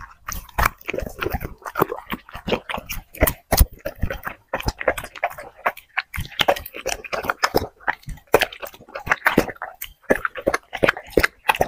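A dog chewing food: a quick, irregular run of wet smacks and clicks that hardly pauses.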